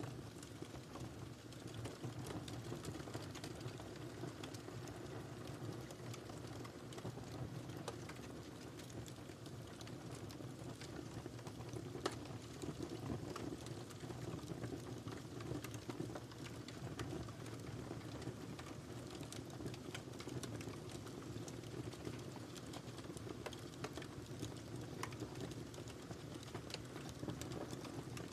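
Wood fire burning in a fireplace: a steady low rumble of flames with frequent sharp crackles and pops, the loudest about twelve seconds in.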